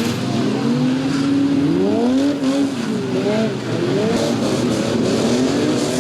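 Several demolition derby cars' engines revving together, their notes rising and falling and overlapping.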